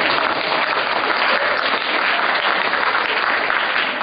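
Theatre audience applauding, a steady dense clatter of many hands clapping.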